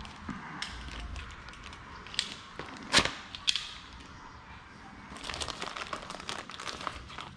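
Handling noises from working on an engine: a few sharp knocks and clicks of tools or parts being set down or moved, the loudest about three seconds in, then a stretch of soft rustling near the end.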